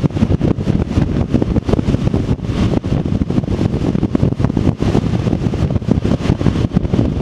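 Wind buffeting the action camera's microphone on a motorcycle at about 52 mph: a loud, uneven rushing rumble that flutters rapidly, with road and engine noise underneath.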